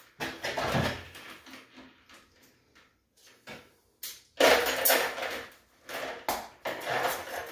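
Steel trap chain, swivel and coil spring clinking and rattling as a swivel is worked onto the end of an inline spring. The clatter comes in spells, with a lull in between.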